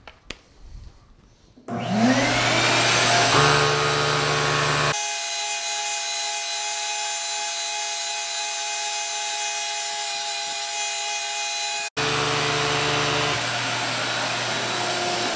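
Flowbee vacuum haircutting clipper switched on after a quiet start: the motor spins up with a rising whine, then runs loud and steady while cutting hair.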